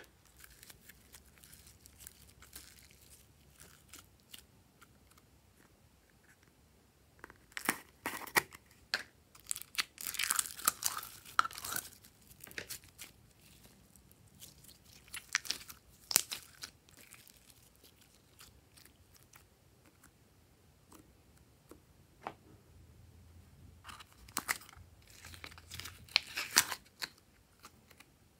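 Glossy glitter slime squeezed and stretched by hand, giving sticky, crackling clicks in about four bursts of one to three seconds each.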